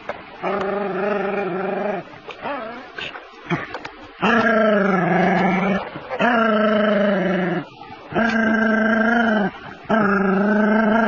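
Dog giving five long, drawn-out growling barks, each a second or more, with a few short yaps between the first and second. It is holding a large snake at bay.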